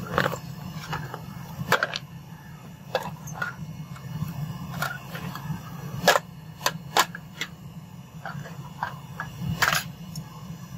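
Aluminium ingots knocked out of a muffin-tin mould and set down on hard ground: a run of separate sharp metallic knocks and clinks at uneven intervals, over a steady low hum.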